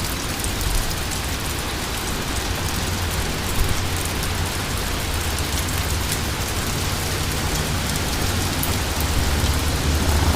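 Steady rain falling at the tail end of a severe thunderstorm, with light wind rumbling on the microphone.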